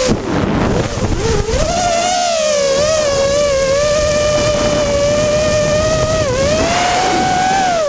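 Brushless motors and propellers of an X210 FPV racing quadcopter whining in flight, heard from on board with wind noise. The pitch dips and wavers in the first second or so, holds steady, then dips and climbs again near the end as the throttle changes.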